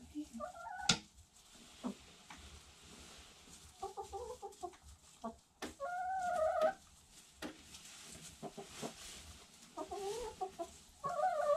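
Domestic hens clucking: several drawn-out calls spaced a second or two apart. A few sharp clicks come between them, the loudest about a second in.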